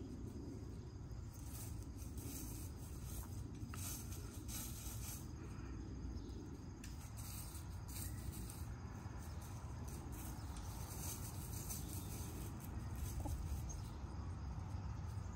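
Backyard hens foraging in loose straw, with faint scratching, rustling and occasional soft clucks over a steady low rumble.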